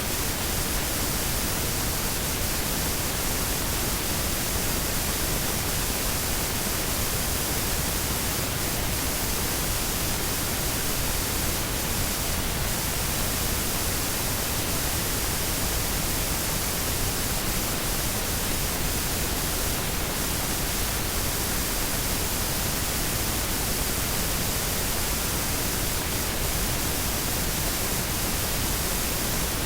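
Washing machine running: a steady, even rushing hiss with no rhythm or change.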